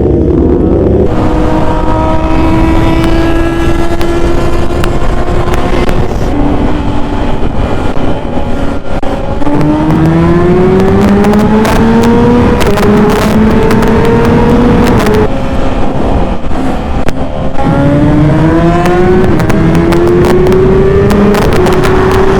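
Sport-bike inline-four engine pulling hard through the gears. Its pitch climbs, then drops at each of several upshifts, with heavy wind rush over the microphone.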